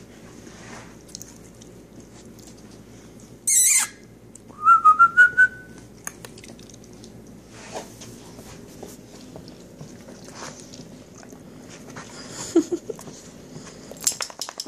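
A squeaky dog toy squeaking in a quick run of five or six pulses, its pitch rising slightly, right after a short hissing rush; soft clicks and rustles follow.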